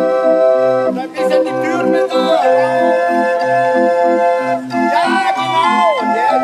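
Two hand-cranked barrel organs (street organs) playing a tune together: held pipe notes over a regular, rhythmic bass accompaniment, with sliding tones twice.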